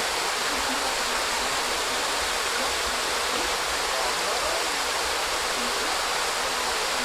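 Steady rushing of a mountain stream's water pouring through the rocky pools.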